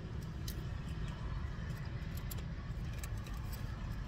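Steady low rumble of highway traffic going past, with scattered faint clicks.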